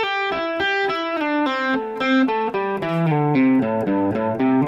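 Clean electric guitar playing a steady run of single picked notes through the minor pentatonic scale, about four or five notes a second, shifting position along the neck.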